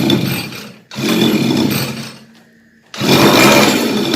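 Small grass-trimmer engine fitted to a bicycle, revved in two sudden bursts that each fall away almost to nothing, then held at high revs from about three seconds in.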